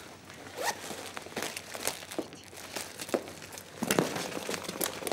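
Irregular rustling, crinkling and small knocks of things being rummaged through, with a few louder clacks about a second in and near the end, as someone searches for a lost key.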